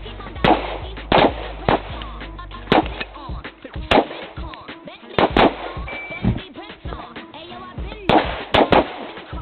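Handgun shots fired at a range: about ten sharp reports at irregular intervals, some in quick pairs, over background music.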